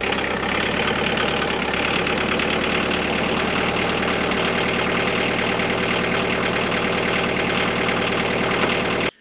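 Tractor engine running steadily at a low idle.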